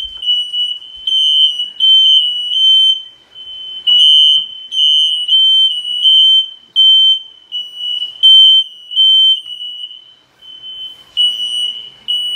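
Household smoke alarm sounding a loud, high-pitched run of rapid beeps, set off by smoke from cooking on the stove. It stops briefly about ten seconds in, then starts beeping again.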